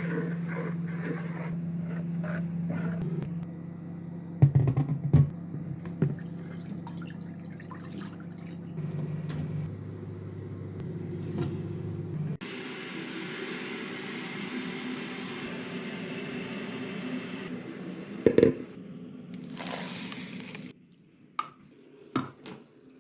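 Kitchen work with liquid: a steady low hum with a few sharp knocks, then about five seconds of even hissing like liquid pouring or running, a loud knock, a short burst of hiss, and a few light clicks.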